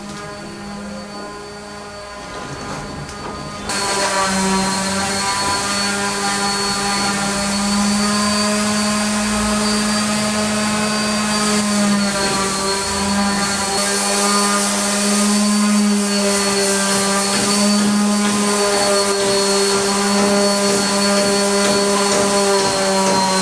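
An electric motor, like a power tool's, running steadily with a whining hum. It gets louder and hissier about four seconds in, then holds steady.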